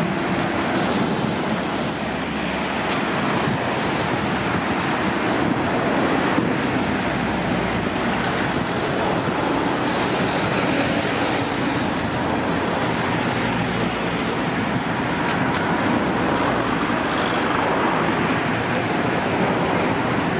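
Steady road traffic: cars and a van passing close by, with a continuous mix of tyre and engine noise.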